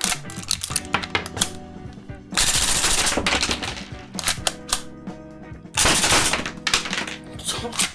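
Marushin cap-firing UZI model gun firing caps in rapid bursts: two dense bursts of about a second each, with scattered single cracks between them. Background music plays underneath.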